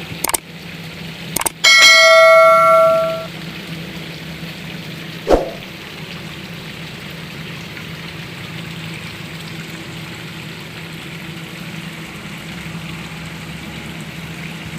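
A couple of sharp clicks, then a single bell-like ding that rings for about a second and a half and fades. A steady low hum continues after it.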